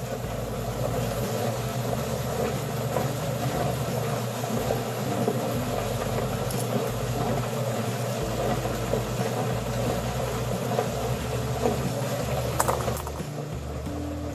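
Steady rumbling hum of rotary rock tumbler barrels running, with a faint click or two of agate stones being handled near the end.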